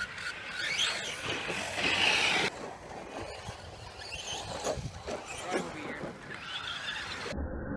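Brushless electric RC truck's motor whining, rising and falling in pitch as it accelerates and slows around the dirt track.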